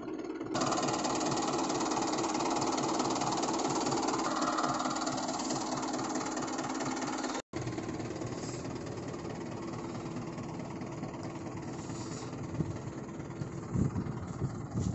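Mahindra 555 DI tractor's diesel engine running steadily with a fast low pulse, cutting out for an instant about halfway.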